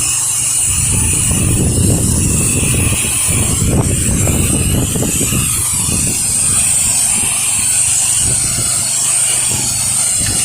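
Pressure washer spray hissing steadily as windows are rinsed. Wind buffets the microphone with an uneven low rumble, and a low steady hum runs beneath.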